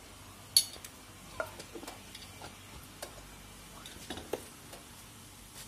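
Scattered light clicks and clinks of metal cooking utensils on pots and pans, with tongs working a frying pan; the sharpest clink comes about half a second in, with a few smaller knocks after it.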